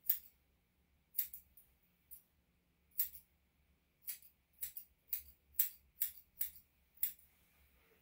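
Grooming scissors snipping through a dog's hair, about a dozen short, irregular cuts.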